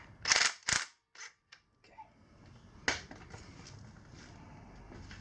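A few sharp knocks and clicks from hand tools working on the Sur Ron Light Bee's rear chain adjuster, a cluster in the first second and a single one about three seconds in.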